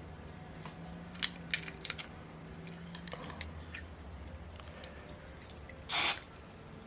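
Small metal parts of a model engine being handled on a workbench: a few sharp light clicks a little over a second in, scattered faint ticks, and a short hiss near the end, over a low steady hum.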